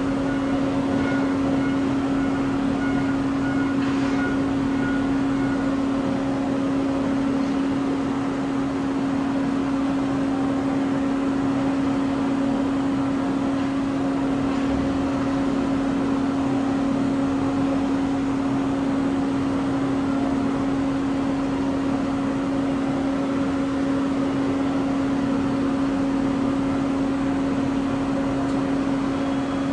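Steady machinery drone at an airliner parked on the apron: a constant low hum over an even rushing noise, from the plane's onboard or ground-support units running. A faint high whine fades out about six seconds in.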